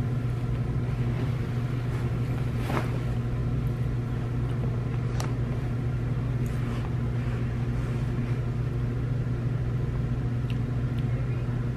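Steady low machine hum that does not change, with a few faint clicks.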